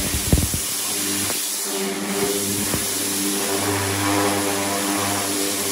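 Pressure washer running steadily, its high-pressure jet hissing as it strips paint, already softened in an alkaline stripping bath, off a steel car fender, over the steady drone of the machine. A couple of brief knocks sound about a third of a second in.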